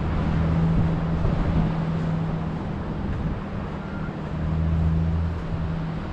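A motor vehicle's engine running steadily with a low hum, getting louder for about a second near the end, over a steady rushing background.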